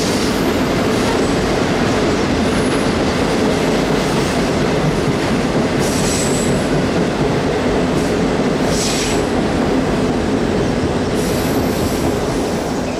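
Freight train cars rolling across a steel trestle: a steady loud rumble of wheels on rail and ringing bridge steel. Brief high wheel squeals come about six and nine seconds in. The sound begins to fade near the end as the last car clears the bridge.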